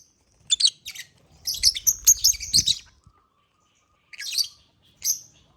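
African lovebirds chirping in short, shrill bursts: a busy run of chirps in the first half, a pause, then two more brief chirps near the end.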